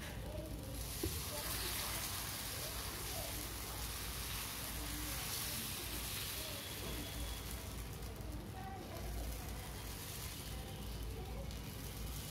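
Thick lentil-and-rice adai batter sizzling with a steady hiss on a hot iron tava as it is poured and spread, with a single light tap of the ladle about a second in.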